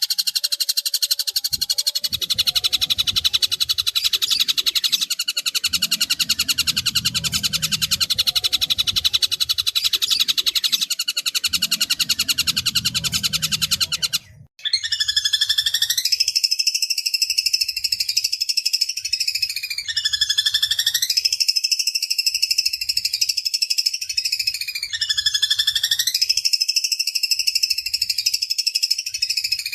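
Recorded long-tailed shrike song with harsh, rough mimicked notes: a fast, dense, grating chatter. About halfway, after a brief break, it changes to long calls repeated about every four to five seconds, each one dipping in pitch and then rising again.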